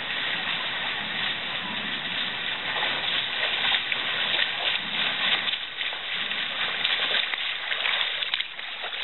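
Swimmer doing front crawl in a pool, the splashing of arm strokes getting louder and closer over the last few seconds, over a steady hiss.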